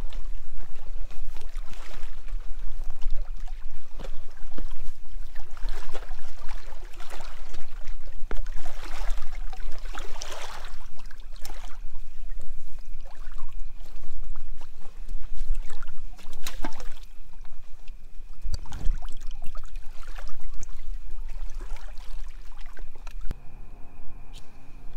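Lake water splashing and sloshing in irregular bursts as cans of beer are pulled out of the water at the shore, over a constant low rumble.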